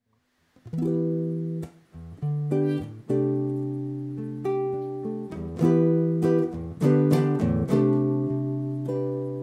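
Solo guitar playing a jazz chord introduction: chords struck one after another and left to ring, starting after a moment of silence.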